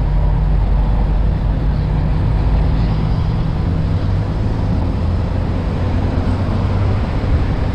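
Steady street traffic noise: motor vehicles running close by, a loud low rumble with a hum that drops slightly in pitch about halfway through.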